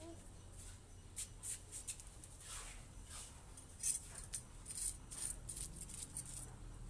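Knife blade scraping the scales off a small fish on a wooden block: a run of short, rasping scrapes and clicks, scattered at first and coming close together from about four seconds in.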